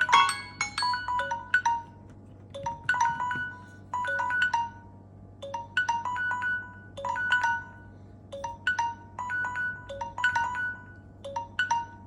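Samsung Galaxy phone alarm tone ringing: a short melody of bright struck notes repeated in phrases, with brief pauses between them.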